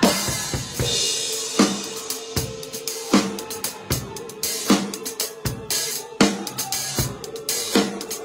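Drum kit played with sticks in a steady groove: snare and bass drum hits land about every three-quarters of a second, with hi-hat and cymbal strokes between them and a cymbal crash about a second in.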